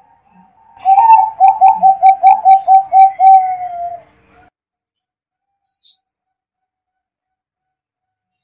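Zebra dove (perkutut) cooing: a quick run of about ten short, loud notes lasting some three seconds, the last one dipping lower in pitch.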